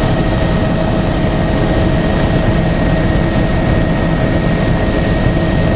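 Helicopter in flight, heard from inside the cabin: a loud, steady drone of engine and rotor with a constant high whine over it.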